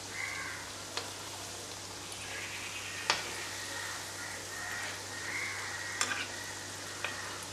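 Pieces of cake dough deep-frying in hot oil in a pan: a steady sizzle and bubbling. A slotted spoon stirs them and makes a few light clicks against the pan.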